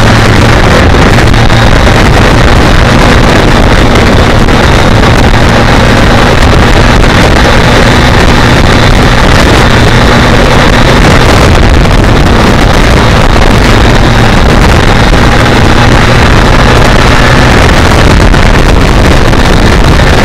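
BMW K1200R Sport's inline-four engine running at a steady cruising pace, with a low engine note under heavy wind rush on the onboard microphone. The engine note is clearest in the first half, then sinks further into the wind.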